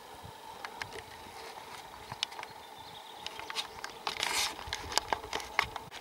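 Footsteps through taiga undergrowth: a string of sharp twig snaps and cracks underfoot, with a longer rustle about four seconds in.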